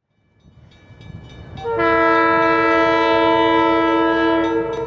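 Multi-chime air horn of Union Pacific EMD E9A locomotive no. 949, sounding one long steady chord of several notes from about two seconds in for about three seconds, over a low rumble. It fades in from silence at the start and eases off just before the end.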